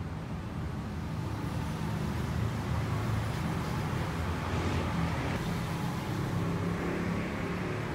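Steady low rumble of road traffic or a vehicle engine running, a little louder in the middle.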